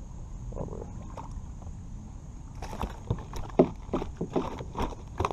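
A quick, irregular run of splashes and knocks from about halfway on as a hooked bass thrashes at the surface and is swung up out of the water into the kayak, over a steady low rumble.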